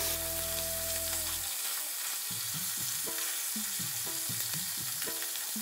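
Dried ribbonfish pieces deep-frying in hot oil in a wok over a low flame, a steady sizzle.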